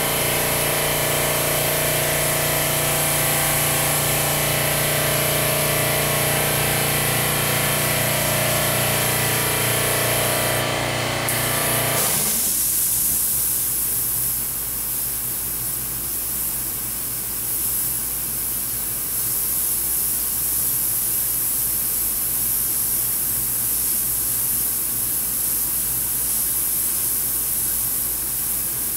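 Harbor Freight double-action, suction-feed airbrush hissing steadily as it sprays paint, over the hum of its air compressor. The compressor cuts off abruptly about twelve seconds in, leaving only the airbrush's hiss.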